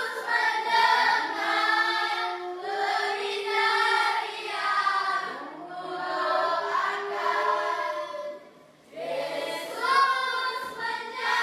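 Choral singing: several voices holding long, wavering notes. It breaks off briefly about two-thirds of the way in, then starts again.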